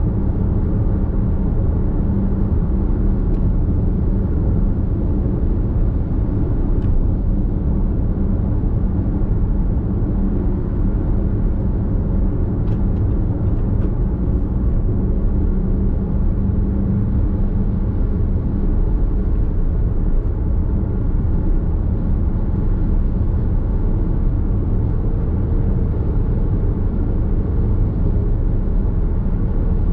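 Nissan X-Trail Hybrid cruising at expressway speed: a steady low rumble of road and tyre noise, heard from inside the cabin.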